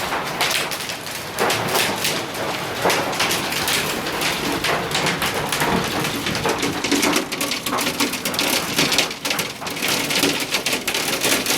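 Heavy thunderstorm rain coming down hard on surfaces: a steady dense noise full of sharp taps.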